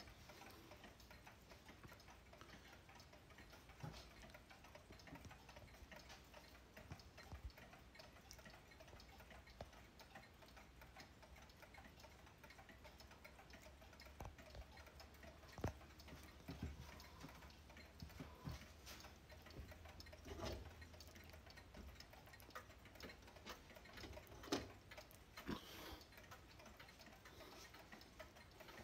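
Several mechanical clocks ticking faintly at once, their ticks overlapping in an uneven patter, from a wall of cuckoo, kitchen and regulator-style clocks. A few louder knocks stand out a little past halfway and twice more in the last third.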